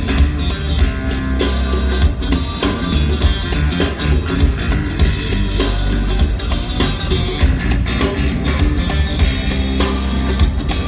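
Rock music with guitar and drums played loud through a Bose line-array PA system, with heavy bass and a steady drum beat.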